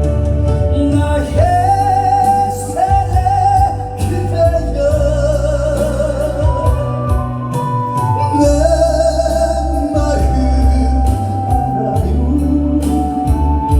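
A song playing: a lead melody in held, wavering notes over a backing track with a steady beat and deep bass.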